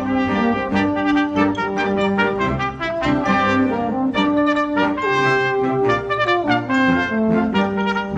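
Amateur wind band playing, the brass (trumpets and trombones) to the fore, with held chords that change every second or so over a steady percussion beat.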